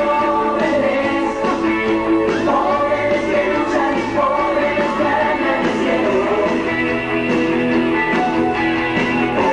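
Rock song by a band with a lead voice singing over it, at a steady loud level.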